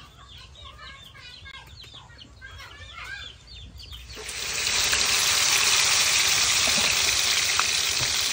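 Chickens clucking, then about four seconds in a loud, steady sizzle starts as fish pieces go into hot oil in a wok and begin deep frying.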